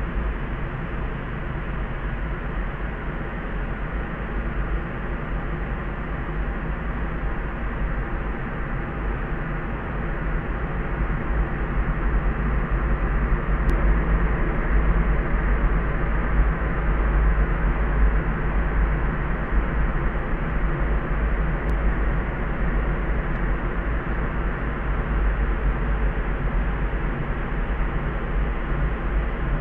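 Layered soft noise for sleep: a steady, deep, hushed noise with nothing high above it. It swells a little about a third of the way in and eases back later.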